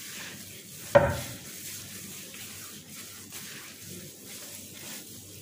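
Hands rubbing and kneading crumbly semolina dough against a glazed clay bowl, a soft steady scraping and rustling, with one sharp knock about a second in.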